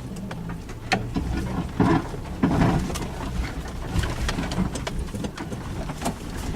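Suzuki Jimny driving slowly over rough off-road ground: the engine running low under a steady stream of clicks, knocks and clunks, with louder thumps about one, two and two and a half seconds in.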